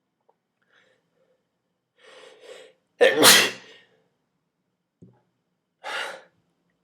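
A person sneezing once, loudly, about three seconds in, after two short in-breaths; the sneeze is set off by tickling the inside of the nose with a twist tie. A shorter breath follows near the end.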